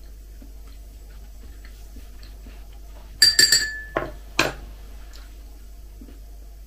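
A metal teaspoon clinking against a ceramic mug in a quick run of ringing taps a little over three seconds in, then two duller knocks as the spoon is set down on the table.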